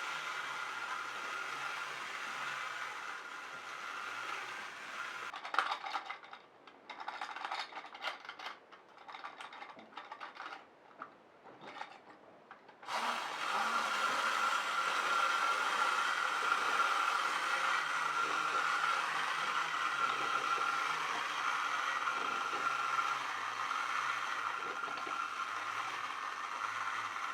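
Wind-up toy robot's clockwork spring motor whirring and rattling as it runs. From about five seconds in to about thirteen seconds it drops to irregular clicks and light rattling, then it whirs steadily and louder again.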